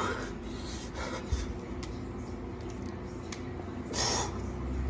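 A person breathing hard, out of breath from doing push-ups: a heavy exhale about a second in and a stronger one near the end, with a few faint clicks between.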